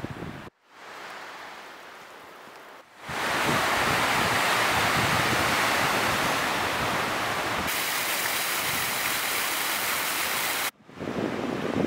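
Ocean surf breaking over rocks, a loud steady rush of water that starts suddenly about three seconds in. Near the end it gives way to a thin waterfall spilling down a rock face. A quieter rush of wind and water comes first.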